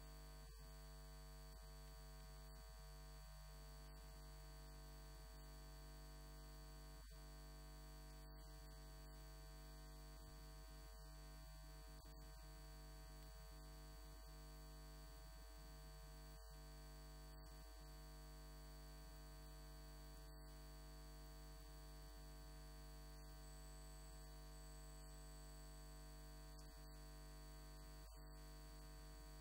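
Near silence with a steady, low electrical hum and no speech.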